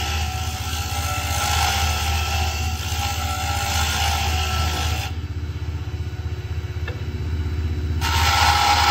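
Small benchtop wood lathe's motor running with a steady hum while a hand-held turning tool cuts into a spinning wooden pen blank, a hissing scrape of wood being cut away. About five seconds in the cutting stops and only the motor hum is left, and the cutting starts again near the end.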